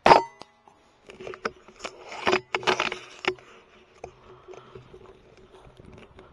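A .177 sub-12 ft/lb Daystate Delta Wolf pre-charged pneumatic air rifle fires one shot, a single sharp crack with a brief ring. About a second later comes a run of irregular clicks and rattles lasting about two seconds, over a faint steady hum.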